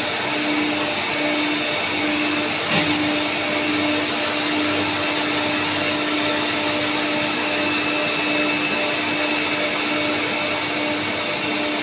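Multi-spindle gun-drilling machine boring gun barrels: a steady machine whir with an evenly pulsing hum, and one short click about three seconds in.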